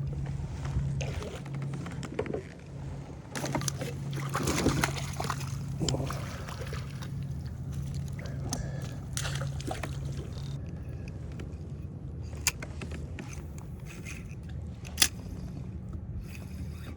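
Water sloshing around a kayak, with scattered knocks and clicks of gear on the boat. A steady low hum stops about ten seconds in, and two sharp clicks come near the end.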